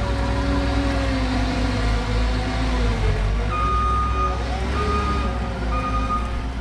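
Caterpillar compact track loader's diesel engine running under load, its pitch rising and falling as the machine pushes dirt. About halfway through, its backup alarm sounds three long beeps.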